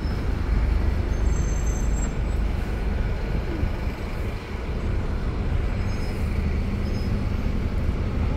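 A sightseeing bus running through city streets, heard from on board: a steady low engine drone with road rumble and a little traffic noise.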